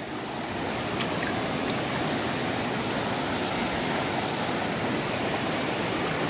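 River water rushing over rocks and shallow rapids: a steady rushing that swells over the first second, then holds.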